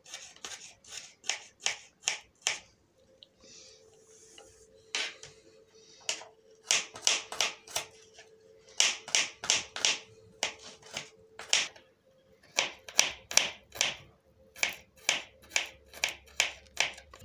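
Knife chopping garlic cloves on a cutting board: sharp chops in runs of about three to four a second, with a couple of short pauses.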